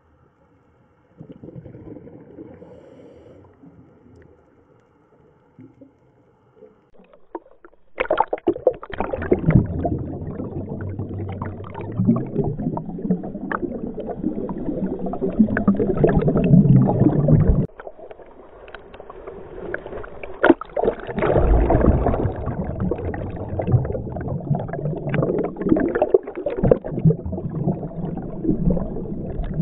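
Water churning and bubbling as heard underwater, a rushing noise full of small clicks and pops. It is faint at first and turns loud about a quarter of the way in, drops away briefly past the middle, then returns.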